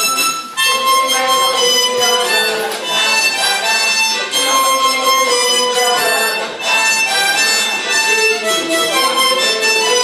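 Harmonica playing a slow melody in held notes, several reeds sounding together in chords, with a brief breath pause about half a second in.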